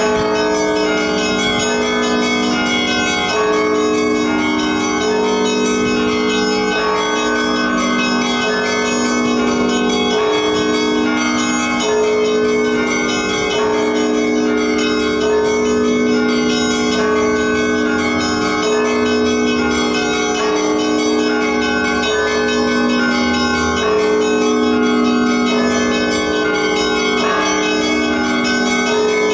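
Russian Orthodox church bells ringing in a continuous peal: several bells of different pitch struck together and in turn, their tones overlapping without a break.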